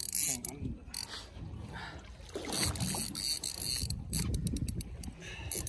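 Water sloshing and slapping against the side of a plate aluminium boat's hull, in uneven surges, with a short run of quick clicks about four seconds in.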